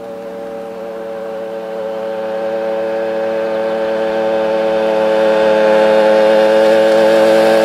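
Two small two-stroke moped engines running at a steady speed as the mopeds approach, a buzzing drone that grows steadily louder.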